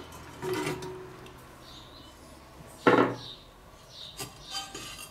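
A mini kamado's metal grill grate and fireclay stones being handled and set in place: light clinks and scrapes, with one sharp knock about three seconds in.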